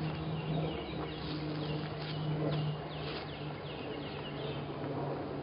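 Songbirds chirping, a run of short falling notes repeated roughly every half second, over a steady low hum.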